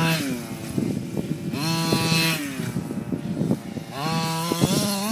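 Losi 5ive T 1/5-scale RC truck's two-stroke petrol engine revving up and easing off three times as it is driven, the pitch rising, holding high and then dropping with each burst of throttle.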